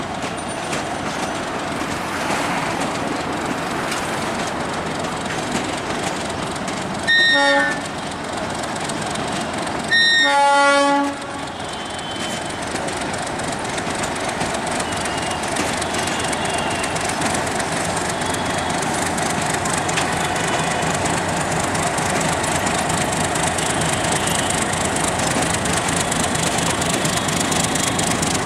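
Passenger train rolling through a rail yard, a steady rumble and clatter of the coaches on the tracks. A diesel locomotive's horn sounds twice: a short blast about seven seconds in and a longer one about ten seconds in.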